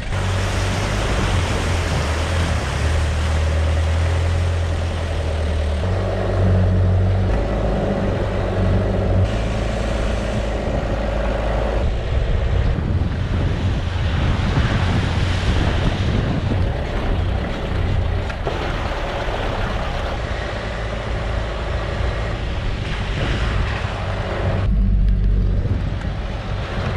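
A 4WD ute driving on dirt and gravel tracks, heard from a camera mounted on its body: a steady engine hum under tyre noise. The sound changes abruptly several times.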